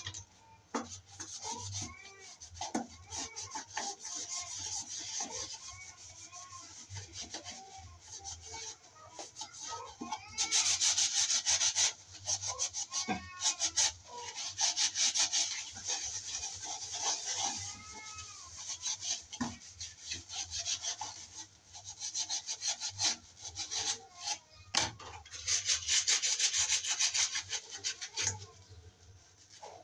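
Soapy sponge scrubbing a plastic jug by hand: rubbing strokes that swell and fade in stretches.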